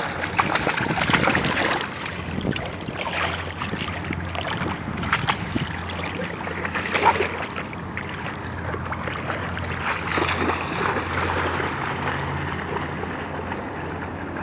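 Dogs splashing as they wade and run through shallow water, a string of uneven splashes, busiest in the first couple of seconds, over a steady low rumble.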